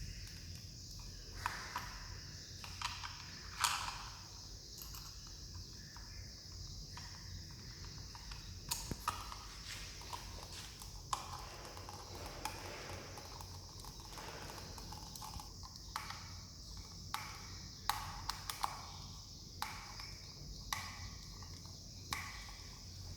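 Irregular light clicks and knocks of hard objects being handled, a few at a time at uneven spacing, over a steady high-pitched hiss.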